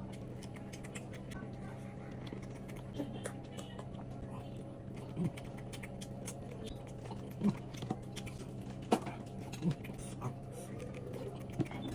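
A person eating fish and prawns: sparse wet mouth clicks and smacks while chewing, about once a second or two, over a steady low hum.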